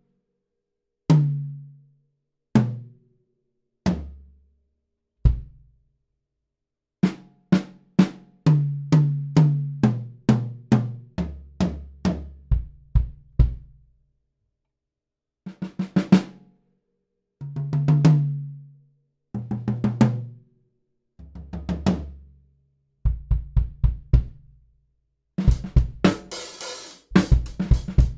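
Fibes 7-ply maple drum kit, close-miked and played solo. It opens with four single strokes a second or so apart, each lower in pitch, from the rack toms down to the floor tom and bass drum. Rapid tom fills run around the kit after that, and cymbals and hi-hat join in a groove near the end.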